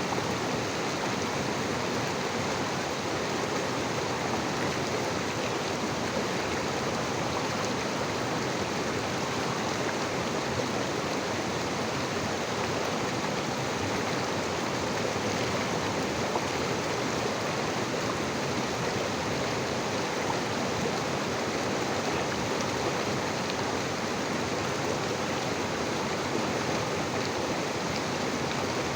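River water flowing steadily, an even, unbroken noise with no change in level.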